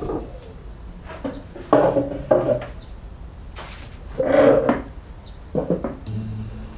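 Ceramic bowls and chopsticks being set down on a wooden dining table: a few separate knocks and clinks, with a louder sound about four seconds in.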